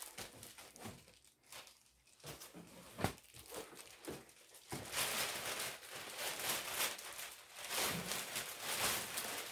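Plastic packaging crinkling and rustling as products are packed up, soft and scattered at first with one sharp knock about three seconds in, then loud and continuous from about halfway through.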